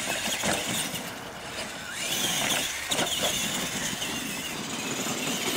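Radio-controlled monster trucks racing over dirt: motors and gears whining, rising and falling in pitch, over the rush of tyres on dirt, with a few knocks as they hit the ramps.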